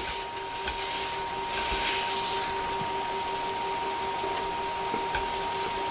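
Pancake batter sizzling steadily in a hot frying pan as it burns, with a steady electrical hum underneath.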